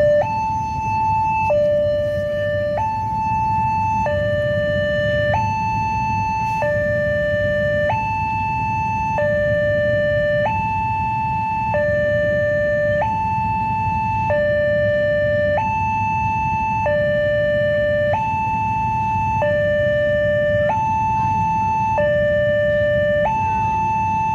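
Railway level-crossing alarm sounding its electronic two-tone warning, a high note and a low note alternating evenly about every second and a quarter: the signal that a train is approaching and the crossing is closed. A steady low rumble runs underneath.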